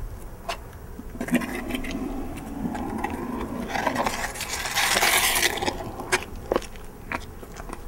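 Footsteps and shoe scrapes on pavement, with scattered sharp clicks and a rushing scrape that swells about four to five seconds in and then fades.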